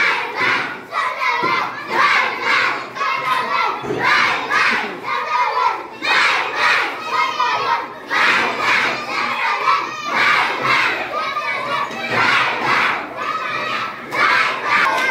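A roomful of young children shouting and cheering together, their voices rising and falling in repeated bursts.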